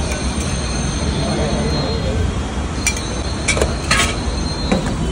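Steady din of a busy street-food stall with background chatter. A few sharp metal clinks of cooking utensils come in the second half, the loudest about four seconds in.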